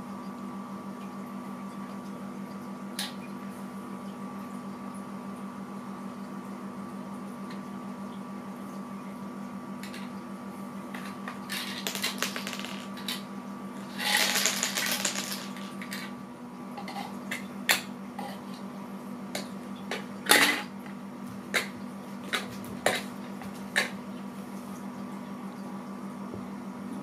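Pieces of a tabletop balancing game being handled and stacked, making a series of light clicks and knocks, with a longer clatter about fourteen seconds in. A steady electrical hum runs underneath.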